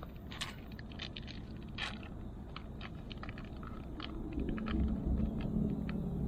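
Scattered light ticks and crunches over a low rumble, with a motor vehicle's engine hum coming up about four seconds in.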